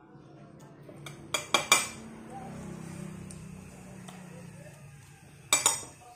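Metal spoon clinking against a ceramic plate while eating: a quick run of three clinks about a second in and another short cluster near the end.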